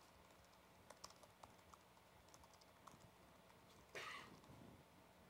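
Faint typing on a computer keyboard: soft, scattered key clicks. About four seconds in comes a brief, louder rush of noise, half a second long.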